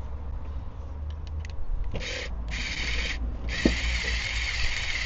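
Ratchet spanner clicking as a bolt is done up, in three bursts of rapid ratcheting, the last and longest lasting about two seconds, with a few light clicks of metal on metal before them.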